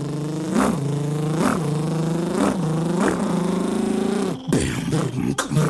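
A beatboxer imitating a car engine with his voice: a steady low buzzing drone with a rising rev about once a second. About four and a half seconds in it breaks off into short beatbox hits.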